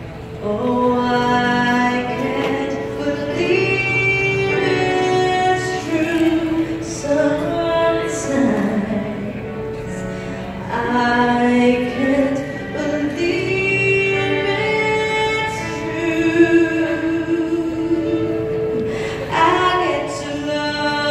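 A woman singing a slow song over sustained instrumental accompaniment, played as the bride walks up the aisle: the bridal processional music.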